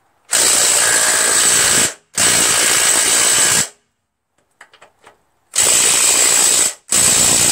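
DeWalt 12-volt brushless 3/8-inch impact wrench hammering in four bursts of a second or so each on a seized lawnmower engine mounting bolt, which does not break loose.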